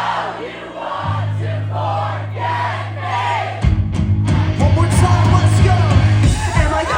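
Live pop-punk band playing loud with singing and the crowd joining in. Held low bass notes change about a second in, and the full band comes in louder and busier about three and a half seconds in.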